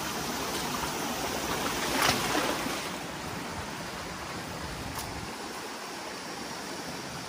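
Small mountain stream running over mossy boulders, a steady rush of water. A brief louder scuff comes about two seconds in, and the rush eases a little after about three seconds.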